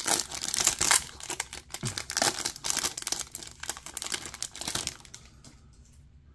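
Foil trading-card pack wrapper crinkling and tearing as it is ripped open by hand, a dense crackling that dies down about five seconds in.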